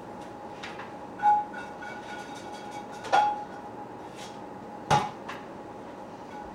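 Kitchen pans and utensils being handled: four sharp knocks and clinks spread over several seconds, a couple of them ringing briefly, over a faint steady whine.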